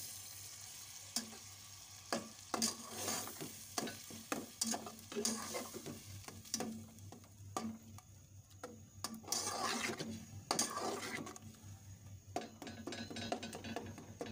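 Metal slotted spatula stirring chopped tomatoes and onions frying in oil in a metal pot, with repeated scrapes against the pot, about one or two a second, over a low sizzle.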